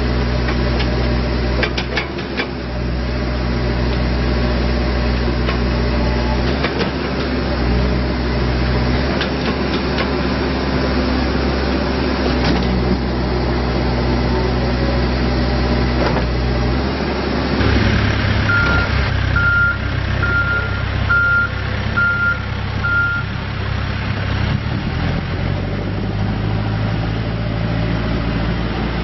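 Case 580N backhoe loader's diesel engine running, its note shifting a few times as the machine is worked. About two-thirds of the way through, the reverse alarm beeps six times, a little under a second apart.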